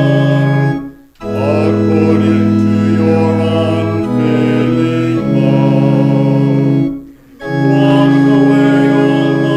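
Church organ playing held chords of a psalm tune, with short breaks between phrases about a second in and again about seven seconds in.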